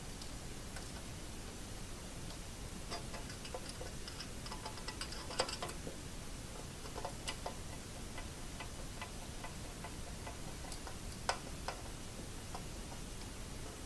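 Small, scattered clicks and ticks of a screwdriver working screws in a 3D printer's metal frame and side panels, with a run of rapid light ticks a few seconds in and a few sharper clicks later.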